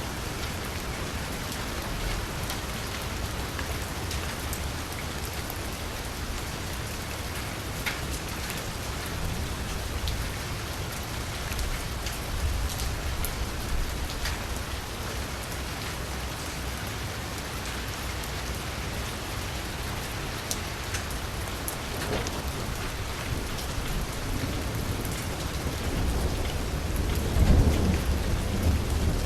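Steady rain falling on a street, a constant hiss with scattered drop ticks. A low rumble swells near the end.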